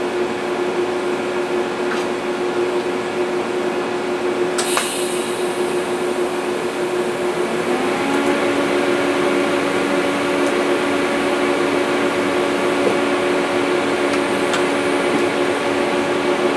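Electric welding arc laying down ER70S-6 mild-steel filler to build up the worn retaining prongs of a snow blower's pull-starter cover: a steady hiss over a steady hum. There is a sharp click about four and a half seconds in, and a little before eight seconds a tone rises and a second, lower hum joins.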